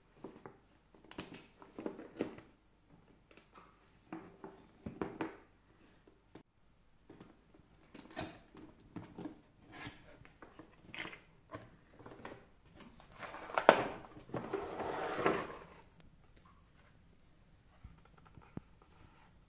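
Cardboard box handled and opened by hand: scattered rustles, taps and scrapes, with a louder crinkling rustle about two-thirds of the way in as the plush toy and its packaging are pulled out.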